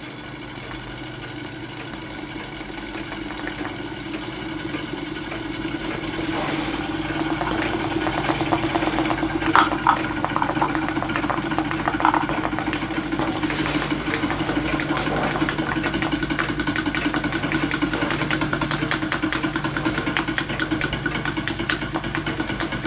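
Märklin 4106 live-steam model engine running steadily, a continuous mechanical hum that grows louder over the first several seconds and then holds, with a couple of brief sharper sounds near the middle. It is running smoothly and quietly.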